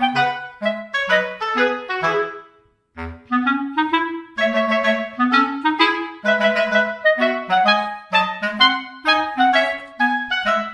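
Instrumental background music: a bouncy melody of short, quickly fading notes. It breaks off for about half a second around two and a half seconds in, then starts again.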